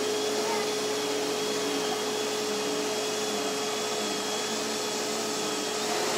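Vacuum cleaner running steadily: an even motor hiss with a constant whine.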